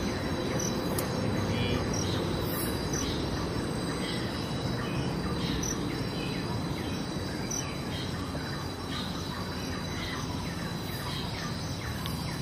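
Insects droning steadily, with a short high chirp repeating roughly once a second, over a steady low background noise.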